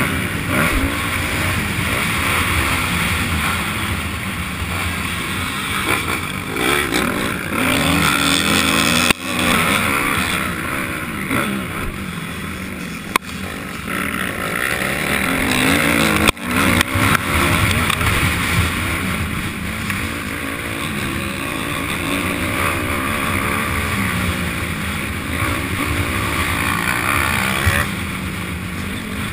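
Honda 250 motocross bike's engine revving up and down as it is ridden hard around a dirt track, heard up close from on the bike. The level drops sharply for an instant a few times.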